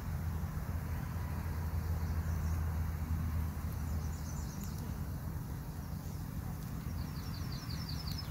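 Log fire burning with a steady low rumble. Short series of quick high chirps from a small bird come about four seconds in and again near the end.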